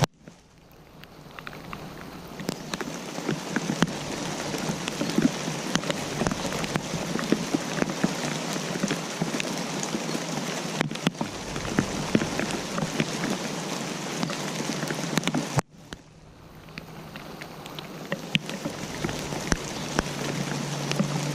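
Rain falling steadily, with many separate raindrops striking close by over the general hiss. The sound cuts out sharply twice, at the very start and about 16 seconds in, and fades back up over a few seconds each time.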